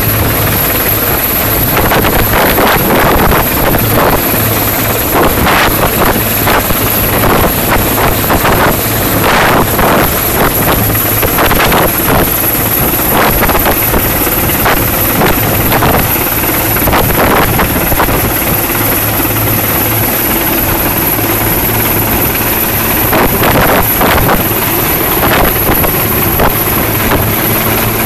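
Sikorsky S-61N helicopter hovering low overhead: loud, steady rotor and turbine engine noise with a constant high whine.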